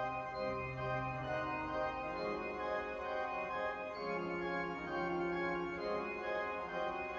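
Organ playing sustained full chords, the chord changing about two seconds in and again about four seconds in.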